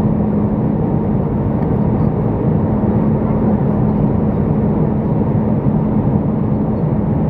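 Airbus A319 cabin noise on final approach: the steady rumble of the turbofan engines and rushing air, with a constant low hum, heard from inside the cabin over the wing.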